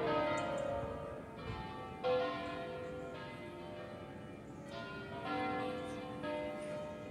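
Large church bells from the 1964 E. Picasso foundry swinging in full-circle 'a distesa' ringing. Several bells strike at uneven intervals and their tones overlap and ring on between strokes.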